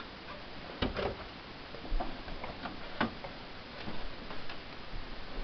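Scattered light clicks and taps of iMac G3 plastic and metal parts being handled during disassembly, with sharper taps about a second in and about three seconds in.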